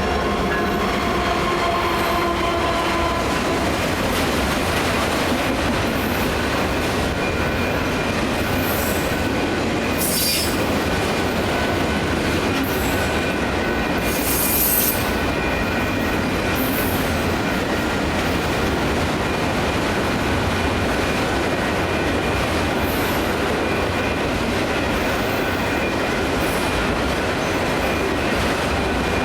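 Autorack freight cars rolling past at a grade crossing: a steady rumble and clatter of wheels on rail, with brief high-pitched wheel screeches about ten and fifteen seconds in.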